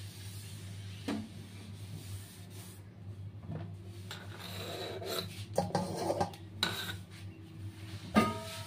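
Light rubbing and rustling handling noises with scattered soft clicks, over a steady low hum.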